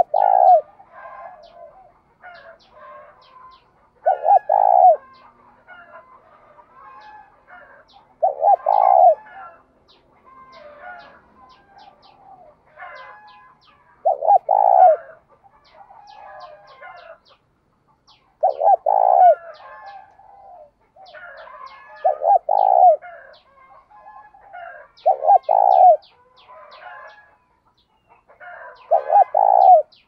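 Spotted dove cooing: a short phrase repeated about every four seconds, eight times in all.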